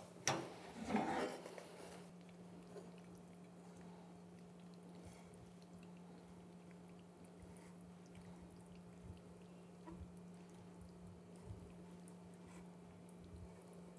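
Tongs lifting sauce-coated penne in a frying pan, a soft wet squishing and a click for a second or two, then near silence with a faint steady low hum.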